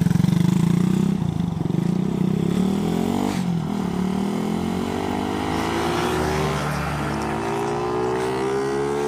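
Suzuki Raider 150's single-cylinder four-stroke engine revving hard as the motorcycle pulls away and accelerates through the gears. Its pitch climbs in each gear and drops at the upshifts, about three and a half and seven seconds in.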